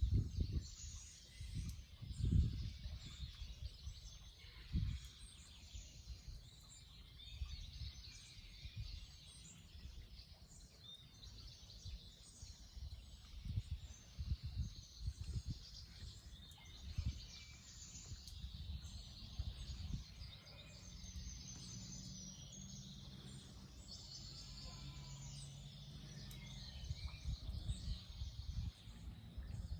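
Several small songbirds chirping and trilling, overlapping one another, over low rumbling bursts that are strongest in the first few seconds and again near the end.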